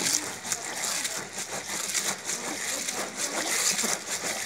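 Wet rubbing and squishing of crushed pomegranate seeds as a hand presses and kneads them against a plastic colander to force out the juice, a continuous run of small wet crackles.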